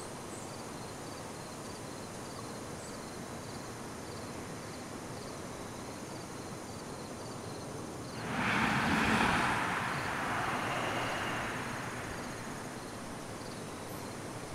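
Outdoor ambience with a faint high chirp repeating about twice a second. About eight seconds in, a whooshing swell of noise rises, peaks and fades away over a few seconds, the way a passing vehicle or aircraft does.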